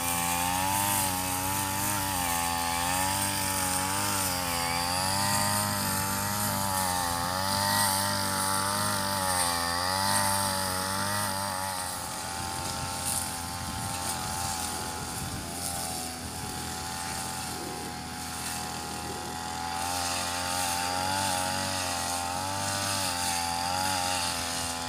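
Backpack brush cutter engine running as it cuts grass, its pitch rising and falling over and over as the blade bites in and frees up, then holding steadier about halfway through.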